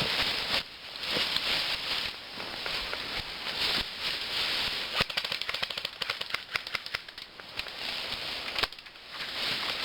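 Rustling noise that comes and goes, with a rapid run of sharp clicks about halfway through, lasting roughly two seconds.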